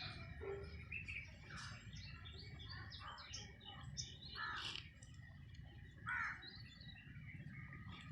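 Birds chirping in a rapid string of short calls, with two louder calls about four and a half and six seconds in, over a steady low background hum.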